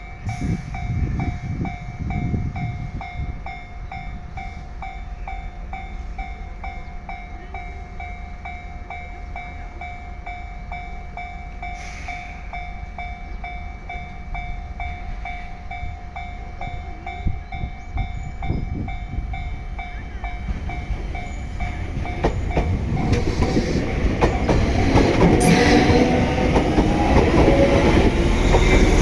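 Japanese level-crossing warning bell ringing steadily as an electric commuter train approaches. About two-thirds of the way through, the train grows louder and runs past, with wheel clatter over the rail joints.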